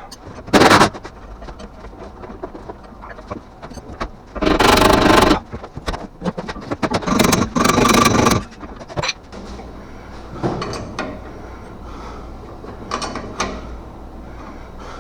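Impact wrench running in short bursts on suspension bolts: a brief one near the start, two longer ones of about a second each around the middle, and fainter short ones later.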